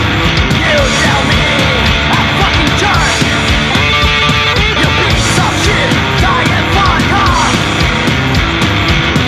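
Background rock music with a steady beat and a yelled or sung vocal line.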